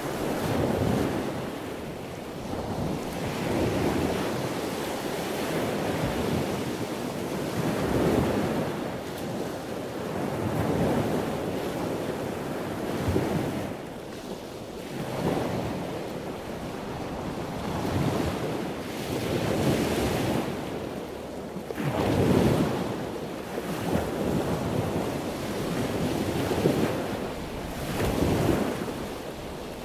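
Wind buffeting the microphone in uneven gusts, mixed with the rush of sea surf.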